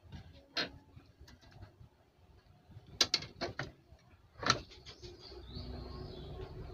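Sharp clicks and knocks of hands handling a CRT TV's chassis board and its wiring on a workbench, loudest about three and four and a half seconds in. A low steady rumble comes up near the end.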